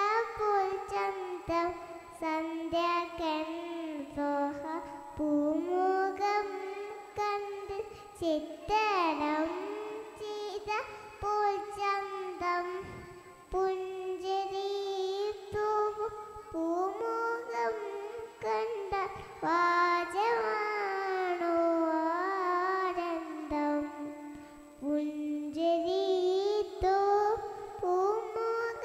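A young girl singing solo into a hand-held microphone, one melodic voice with gliding, ornamented pitch and no instruments behind it.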